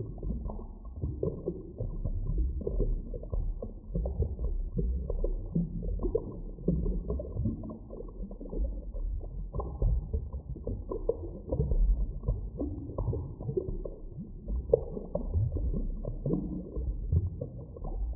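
Muffled underwater ambience: a constant deep rumble with irregular bubbling and gurgling pops, everything dull, with no high sounds.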